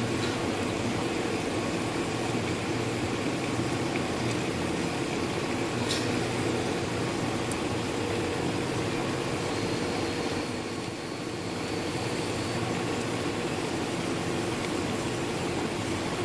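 Manual lathe running at low speed, its 0.125-inch parting blade cutting steadily through a 4-inch bar of 17-4 stainless steel: an even mechanical hum with cutting noise, the cut sounding good.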